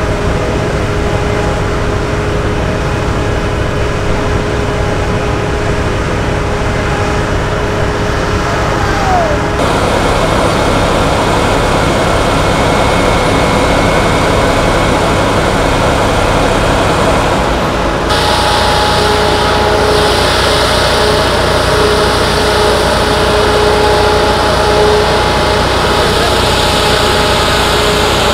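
Diesel engine of a fire engine running steadily at idle, a constant low rumble with a faint steady hum over it. The sound changes abruptly twice.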